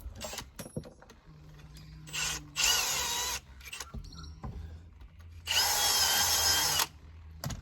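Power drill running in three bursts, the last the longest, with a whine, boring holes in a replacement alternator so that it fits the backhoe's mounting.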